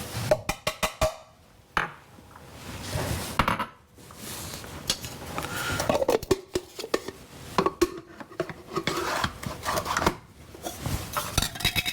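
A quick run of sharp clicks about half a second in, then irregular clinks, knocks and rustling as containers are handled on a kitchen counter.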